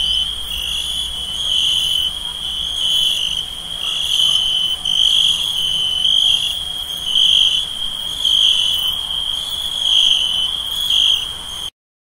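A chorus of crickets chirping in a steady, high-pitched trill that swells and eases in pulses about once a second, over a faint low rumble. It cuts off suddenly near the end.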